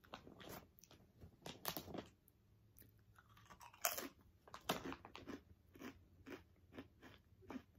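Someone biting and chewing Pizza Potato potato chips: a run of irregular crisp crunches, the loudest about four seconds in.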